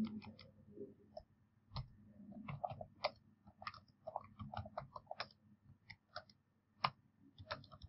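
Computer keyboard being typed on: faint, irregular runs of quick keystrokes with short pauses between words.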